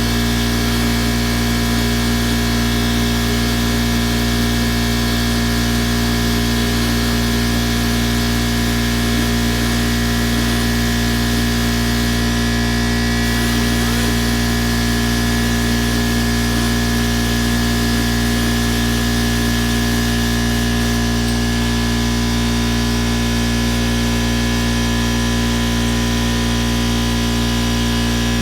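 Air-powered angle grinder fitted with a 3M rubber rubbing wheel running steadily, a continuous hiss with a fixed whine, as the wheel wears away the old emblem adhesive tape on the car's paint.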